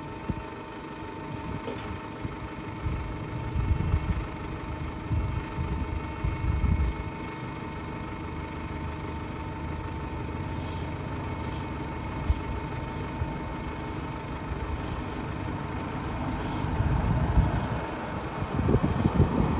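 Single-deck bus engine idling steadily, with the low rumble of passing traffic swelling up twice, the second time near the end as a car goes by.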